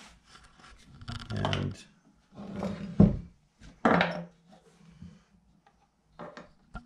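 Handling noises of a small metal crankshaft and connecting rod being moved across a wooden workbench and set on a digital scale: rubbing and clatter, with a sharp knock about three seconds in.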